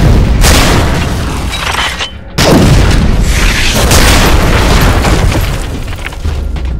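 Film sound effects of a blast: a heavy boom with a long loud rumble and rush, a brief drop about two seconds in, then a second boom that carries on rumbling.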